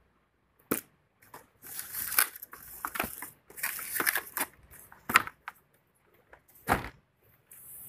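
Cardboard packaging and plastic wrap being handled: rustling and scraping broken by several sharp knocks, the loudest about five seconds in.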